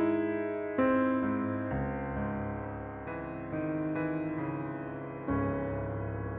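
Slow piano background music: chords struck every second or two, each ringing on and fading away.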